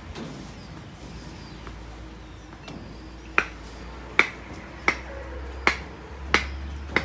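Hammer blows on a construction site: six sharp, ringing strikes at an even pace, about one every three quarters of a second, starting about three seconds in.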